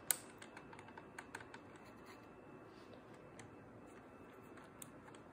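A sharp plastic click just after the start, then faint scattered clicking of Lego plastic parts and gears as the model car's steering is worked by hand to straighten it, with its motors switched off.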